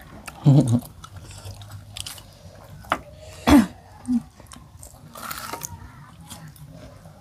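Biting and chewing crispy fried tofu with a crunchy crust, as scattered crisp crunches and mouth sounds, with a couple of short hums from the eaters.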